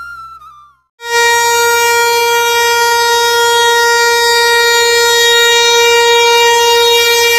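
Electric locomotive's air horn blowing one long steady note, starting abruptly about a second in and held without a break, over the low rumble of a passing train.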